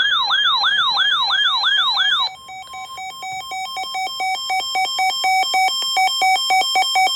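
Electronic siren-like alert tone wailing up and down about three to four times a second, then switching to a rapid run of short electronic beeps at several pitches that grow steadily louder and cut off abruptly.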